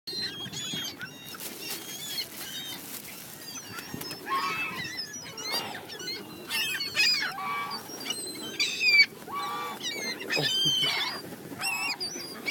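A group of birds calling: many short, repeated calls overlapping one another, with one of the loudest calls about nine seconds in.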